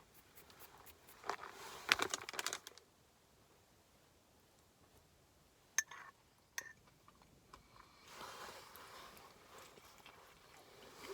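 Packaging crinkling in short bursts, then two sharp clicks and a stretch of softer rustling.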